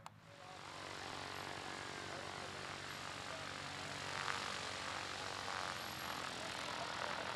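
Light aircraft's piston engine and propeller running steadily.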